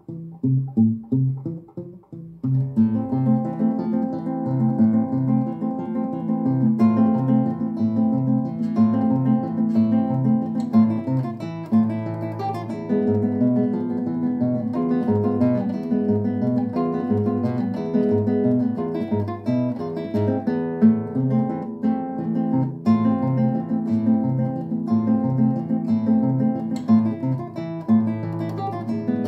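Solo nylon-string classical guitar played fingerstyle: a few separate plucked notes at first, then from about two and a half seconds in a continuous melody over a repeating bass line.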